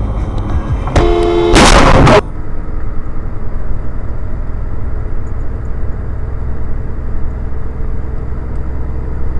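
About a second in, a vehicle horn sounds briefly. It is followed at once by a very loud, distorted blast of noise lasting under a second. After that comes a steady low rumble of a vehicle driving on the highway.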